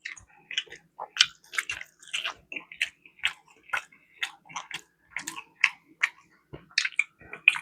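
Close-miked chewing of saucy barbecue chicken wings: wet smacking and clicking mouth sounds, irregular, a few a second.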